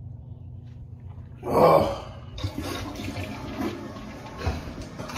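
A person makes one loud faked retching heave over a toilet about one and a half seconds in, then the toilet flushes with a steady rush of water.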